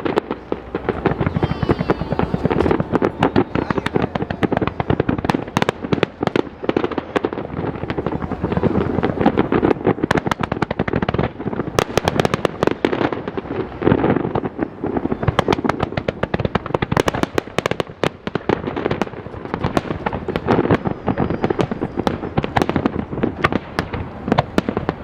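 Fireworks display: a dense, unbroken barrage of sharp bangs and crackling bursts, many a second.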